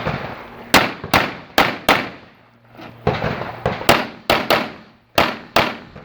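Rapid pistol fire: about a dozen sharp shots in quick strings of three or four, with short pauses between strings, each shot ringing briefly.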